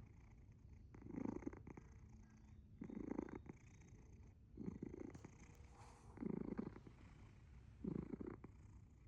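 Sleeping tabby cat's rhythmic rumble, five bursts about every one and a half seconds, one per breath. The uploader is unsure whether it is purring or snoring.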